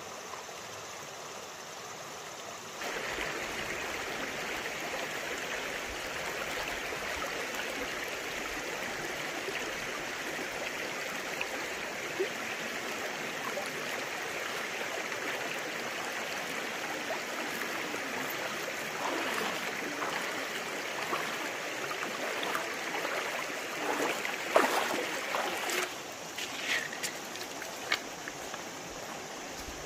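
Water running in a steady rush that grows louder about three seconds in. In the second half a few short knocks and clatters sound over it.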